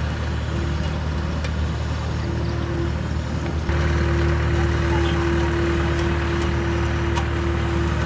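Double drum road roller running as it rolls over fresh asphalt: a steady engine hum with a constant whine on top, stepping up in loudness about three and a half seconds in.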